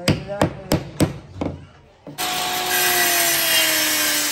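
A quick run of sharp knocks on wood, then about halfway an electric power saw comes in suddenly, cutting cabinet board with a steady whine that sags slowly in pitch.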